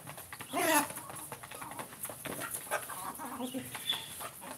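Free-range village chickens (ayam kampung) clucking while feeding, with one loud call about half a second in, followed by scattered short clucks.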